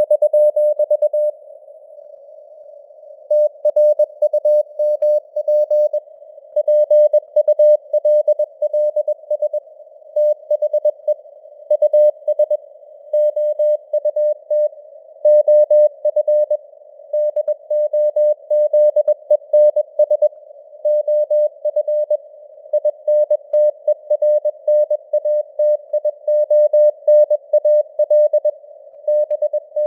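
Morse code (CW) at 21 words per minute: a single steady tone of about 600 Hz keyed in dots and dashes, with short pauses between words. It sits over a low bed of simulated radio band noise.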